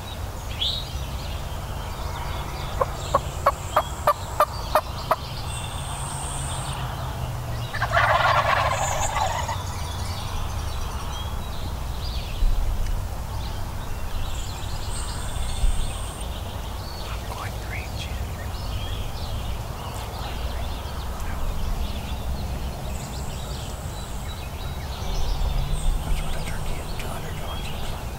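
Wild turkey gobbling, one loud rattling gobble about eight seconds in. It is preceded by a quick run of about eight short, sharp notes.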